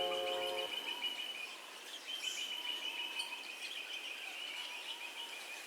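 Background music ends within the first second, leaving outdoor ambience: a steady, faint, high-pitched trilling chirp made of rapid pulses.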